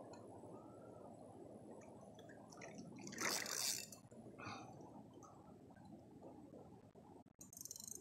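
Steady low rush of flowing river water, with a brief louder splash about three seconds in.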